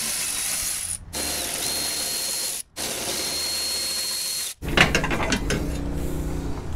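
Cordless electric ratchet running in three short runs as it spins off 10 mm bumper-stay fasteners: a steady motor whir with a thin high whine. About two-thirds of the way in it stops, and metal clanks and rattles follow as the steel bumper stay is worked loose.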